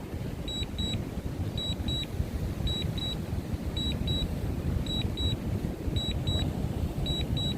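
Drone remote controller beeping out a warning: short high double beeps that repeat about once a second, over steady wind rumble on the microphone.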